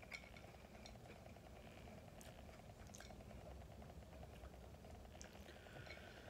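Near silence: faint room tone with a few soft, isolated clicks.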